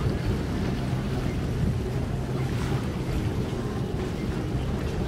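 Boat engine idling with a steady low hum, under wind noise on the microphone.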